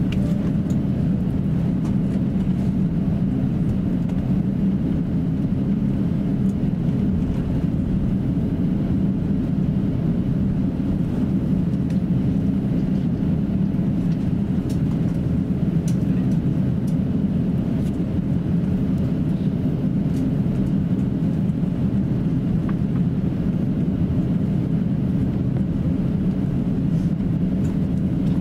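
Airbus A350-900 taxiing, heard inside the passenger cabin: its Rolls-Royce Trent XWB engines at taxi power give a steady low rumble, with a few faint ticks.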